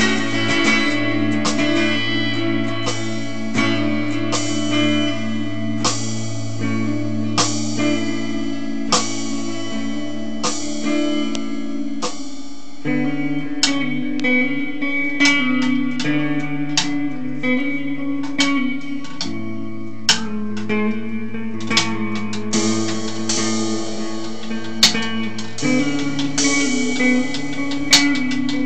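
A guitar and a drum kit playing together: the guitar holds ringing chords that change about 13 seconds in and again about 19 seconds in, while sharp snare and cymbal strikes come every second or two.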